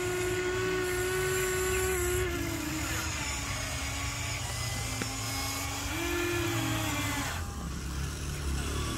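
Small electric motors of RC excavators whining steadily as the booms and buckets move. The pitch shifts a few times as the motors start, stop and change load.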